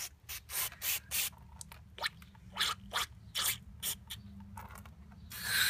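Aerosol throttle body cleaner sprayed through a straw into a carbon-clogged EGR valve, in a string of short hissing squirts with a longer one near the end.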